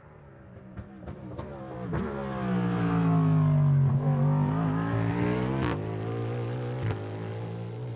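Cadillac V-LMDh prototype race car's V8 engine coming up and past at speed: it grows louder over the first three seconds, its pitch drops as the car slows and then climbs again as it accelerates, with a sharp crack about five and a half seconds in before the note steadies and fades a little.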